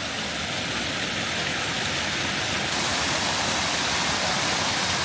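Steady rushing hiss of rain, swelling over the first couple of seconds and then holding even.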